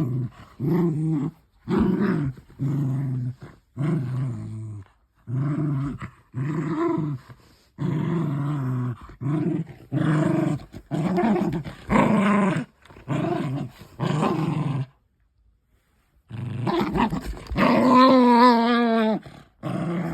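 Toy poodle play-growling in short repeated bursts, about one a second, while tugging on a toy in a game of tug-of-war. After a brief pause near the end comes one longer, wavering growl.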